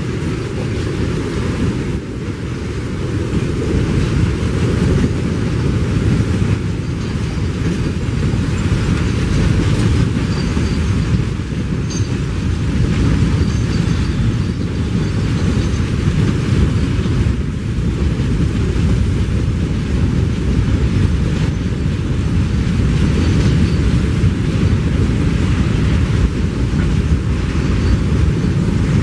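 Empty freight wagons rolling past: a steady rumble of steel wheels on the rails, growing a little louder a couple of seconds in.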